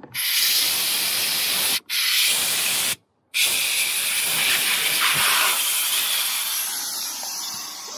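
Air hissing out of an inflatable boat's AIRDECK floor through its opened valve as the floor chamber is let down. The loud, even hiss cuts out twice briefly, then slowly weakens toward the end as the floor empties.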